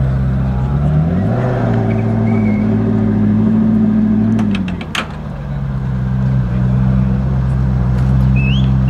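Twin-turbo V8 of a tuned McLaren 650S running at low speed. About a second in, the engine note rises and holds for about three seconds, then drops back to a steady idle, with a short sharp click just after.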